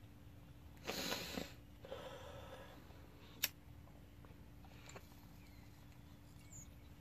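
A lighter being struck to light a glass bong's bowl: a short hiss about a second in, then a single sharp click a little past three seconds.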